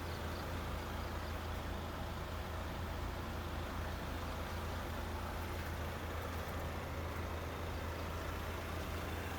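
Ford Explorer idling steadily, a constant low hum.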